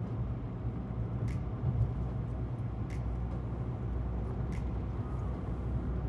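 Road noise inside a moving car at highway speed: a steady low rumble of engine and tyres, with faint ticks about every second and a half.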